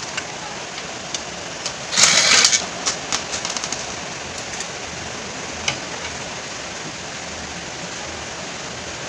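Uchiha Hulk Edition cordless impact wrench hammering in one short burst about two seconds in, loosening a scooter's exhaust mounting bolt, followed by a quick run of lighter clicks.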